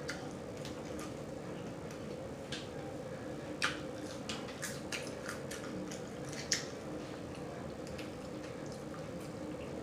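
Close-up mouth sounds of a person eating seasoned fries: wet smacks and clicks scattered irregularly, the sharpest about three and a half and six and a half seconds in, over a faint steady hum.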